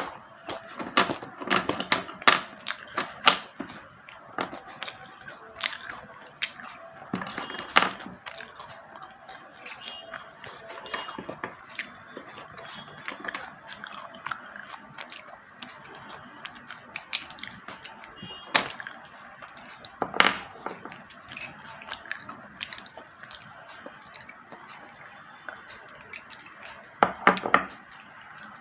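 A person biting and chewing slate pencils: sharp crunching snaps as the sticks break, with softer grinding chews in between. The crunches come in bunches, with a quick run of loud bites near the end.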